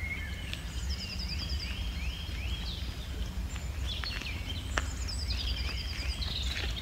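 A small songbird singing two phrases of quick repeated high notes and rising sweeps, each about three seconds long, over a steady low rumble of wind on the microphone.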